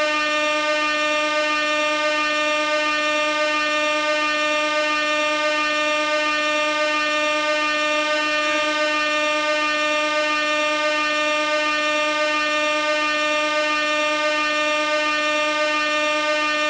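Gas-canister air horn sounding one continuous, unbroken blast at a steady pitch and level.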